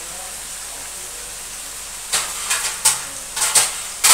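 Diced potato and ridge gourd sizzling with a steady hiss in a kadai. From about halfway there are several quick, uneven scraping strokes as the vegetables are stirred in the pan.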